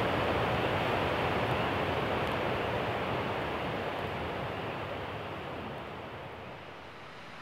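Steady rush of fast-flowing river water in spring flood, gradually fading out.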